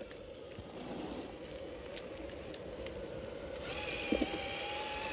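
Electric motor and geartrain of an RC scale crawler running, with a steady whine that comes in about two-thirds of the way through and a couple of small clicks.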